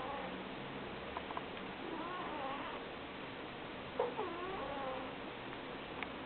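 A sleeping pet snoring: each breath carries a wavering, squeaky whistle, heard twice about two seconds apart.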